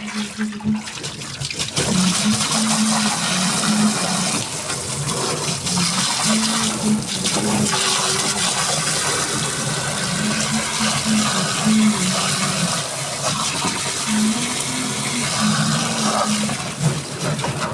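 Manual washing machine running a wash: water churning and sloshing in the tub, with the motor's low hum stopping and starting every second or so.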